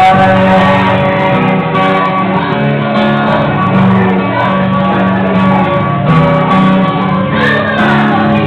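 Acoustic guitar and a singer performing a song live through a microphone, the voice loud and sustained over the guitar.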